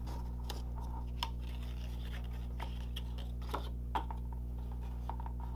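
Cardstock being folded and pressed into a small box by hand: a few faint, soft clicks and paper rustles over a steady low hum.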